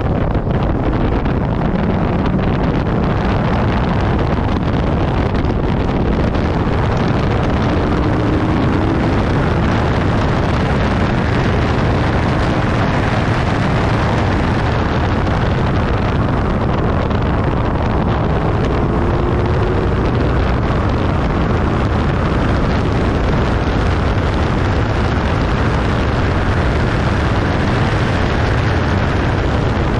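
Infiniti G37S's 3.7-litre V6 running at speed on track, its note rising twice under acceleration beneath heavy wind and road noise.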